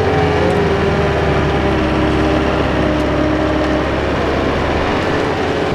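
Heavy machinery engines of an excavator and a John Deere skid loader running steadily under load as the excavator's bucket pushes the skid loader, stuck in slick marsh mud, to free it. A whine over the engine note dips slightly in pitch in the first two seconds, then holds steady.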